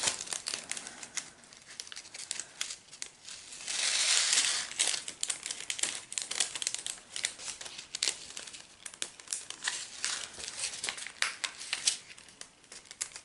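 Plastic packets of diamond-painting drills crinkling and rustling as they are handled and opened, with many small crackles and a louder burst of rustling about four seconds in.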